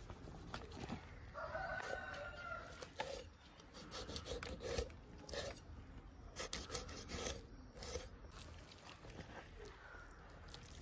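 A rooster crows once in the background, about a second in, lasting under two seconds. A knife cuts and scrapes into the tough skin of a large whole fish in short strokes.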